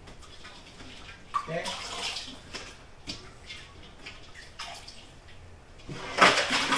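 Water splashing in a kitchen sink as blanched broccoli is drained in a plastic salad spinner: irregular splashes and drips, with a louder gush about six seconds in.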